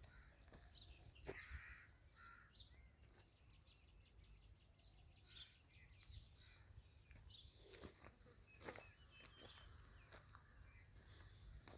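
Quiet farmyard ambience: faint, scattered bird calls and chirps with a few soft clicks over a low steady rumble.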